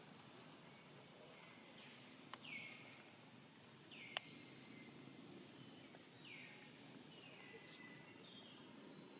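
Faint, high animal calls, about six of them, each sliding down in pitch and trailing off, over a quiet outdoor background. Two sharp clicks, the louder one about four seconds in.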